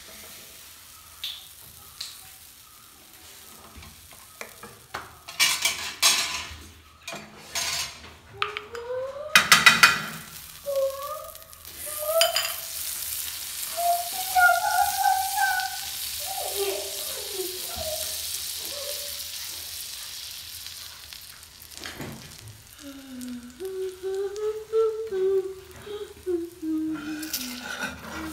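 Pancake batter sizzling on a hot iron tawa as it is spooned on and spread, with a few knocks of the spoon against the pan. The sizzle rises sharply about twelve seconds in and fades away over the following several seconds.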